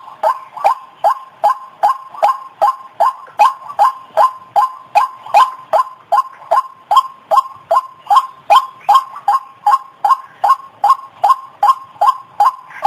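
White-breasted waterhen (ruak-ruak) call played as a bird-lure recording: a steady run of short, repeated notes at about two and a half a second.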